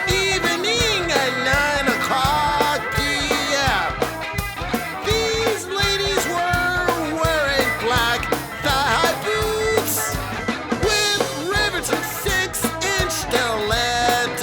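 Rock-style song with a sung vocal over a steady drum beat.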